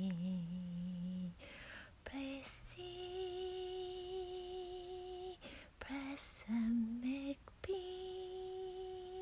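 A woman singing improvised 'space language' (light language) in invented syllables, unaccompanied: a low held note, then short rising notes and two long steady notes higher up, with audible breaths between the phrases.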